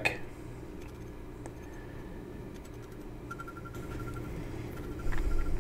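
Quiet, steady low hum of room tone. A faint, rapidly repeating high tone comes in about halfway through.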